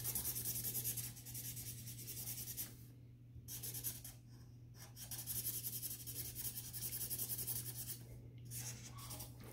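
Felt-tip marker scribbling back and forth on paper in quick strokes, colouring in an area, with a few short pauses between bursts.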